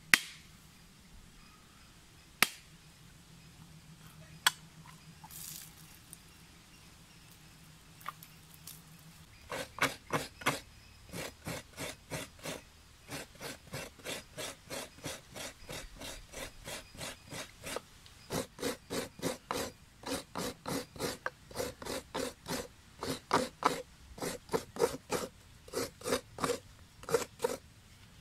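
Three sharp knocks as a coconut is struck with a knife to crack it open, then a half coconut scraped against the toothed steel blade of a hiramanaya (Sri Lankan coconut-scraper stool), making steady rasping strokes about two a second as fresh coconut is grated.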